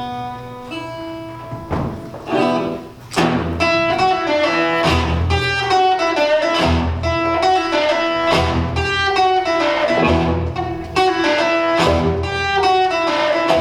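Acoustic guitar playing the instrumental intro to a country-folk song: single picked notes at first, then full strummed chords with low bass notes on the beat from about three seconds in.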